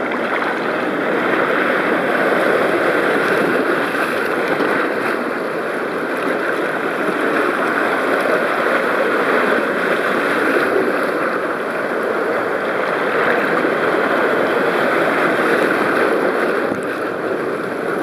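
Fast-flowing water in a wild-water slide channel, rushing and splashing right at a camera held at the water surface: a steady, loud churning.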